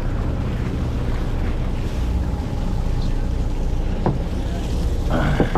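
A fishing boat's engine running steadily under wind and water noise, with a short knock about four seconds in and a brief sharper sound near the end.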